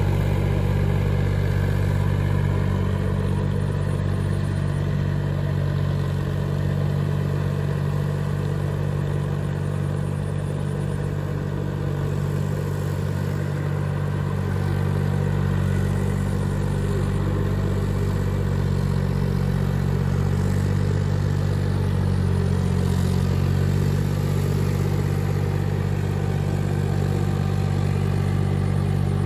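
Farmtrac 6050C tractor's diesel engine running steadily as it pulls a rotary tiller through flooded paddy mud.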